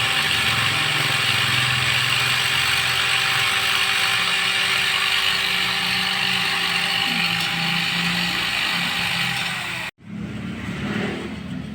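Rotary grinder running steadily against metal, porting the engine's ports, with a steady high whine over a loud grinding noise. It stops abruptly near the end, and a quieter, different mechanical sound follows.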